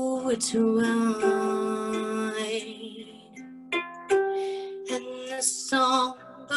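A harp played live: plucked notes and chords ring on and overlap as the melody moves, with a softer passage midway.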